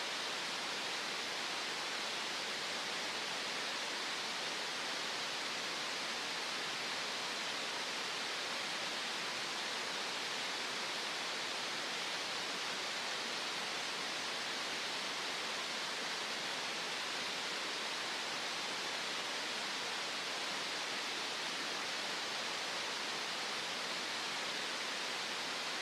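Green noise: a steady, unchanging synthetic hiss, brightest in the upper-middle range.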